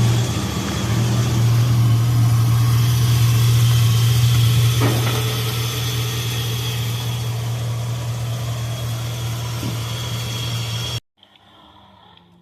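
A vehicle engine running with a steady low drone, which cuts off suddenly near the end.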